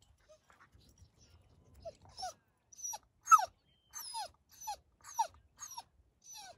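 A dog whining in a string of short yelping cries, each falling in pitch, about two a second, starting about two seconds in.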